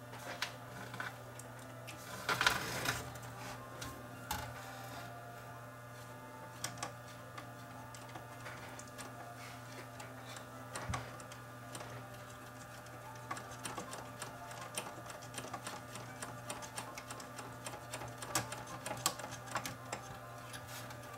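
Small clicks, taps and rattles of hands working inside a cassette deck's tape transport: a screw being driven back in and the new drive belt and capstan flywheel being turned by hand. The clicks are irregular, with a louder cluster of rattling about two to three seconds in, over a low steady hum.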